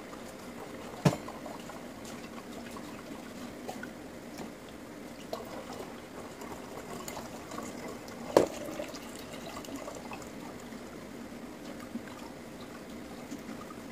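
Blended cucumber juice trickling through a strainer into a glass pitcher. Two sharp knocks break in, about a second in and about eight seconds in.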